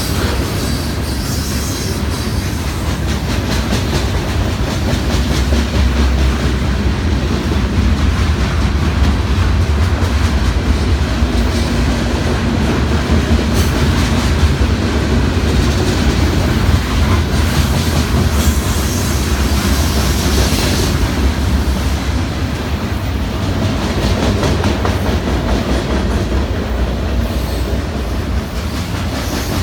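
Long CN freight train's cars rolling past: a steady, loud rumble with the clickety-clack of steel wheels over the rail joints.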